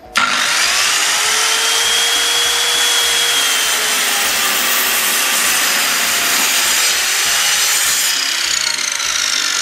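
PA SMS-190T sliding circular saw running and cutting through a thick wooden deck board. It starts abruptly and runs on steadily and loud, its whine sagging and rising as the blade works through the wood.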